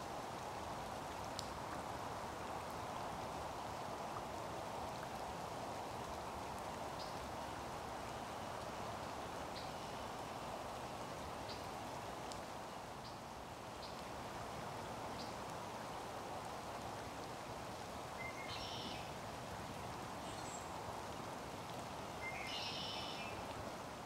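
Steady, even rushing background noise, rain-like, with scattered faint high ticks and two brief chirping sounds near the end.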